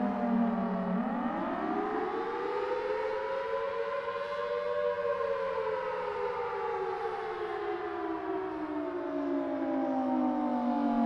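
Federal Signal Thunderbolt 1003 outdoor warning siren sounding during its monthly test. Its pitch sweeps up quickly about a second in, peaks near the middle, then falls slowly back to a low tone by the end.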